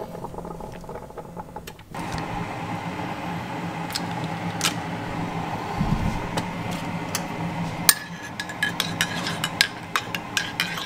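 A single-serve pod coffee maker hums steadily as it runs. From about eight seconds in, a metal spoon clinks again and again against the cup as the coffee is stirred.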